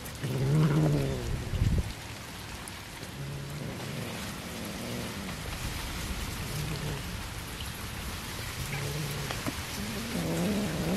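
Several cats chewing and tearing raw fish, a wet smacking and crunching, with short low growls coming and going as they eat side by side. A thump just under two seconds in.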